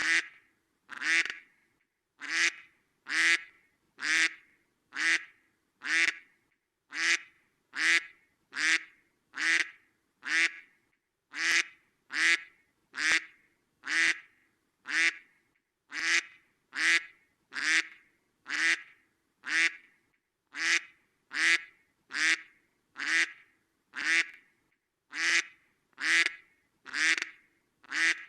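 Duck quacking, single quacks repeated at an even pace a little more than once a second, with silence between each.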